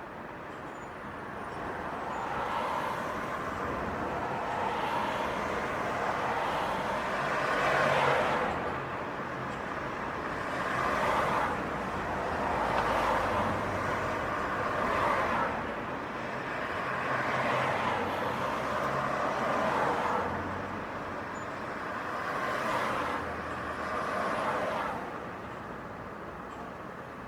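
City street traffic: a stream of cars passing one after another, their tyre and engine noise swelling and fading with each pass. About eight passes in quick succession, the loudest about eight seconds in, before the traffic thins near the end.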